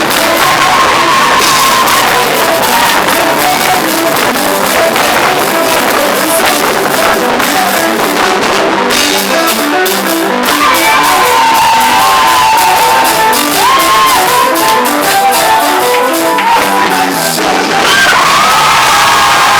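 Loud praise music in a large hall: singing and shouting voices over a band with a steady beat.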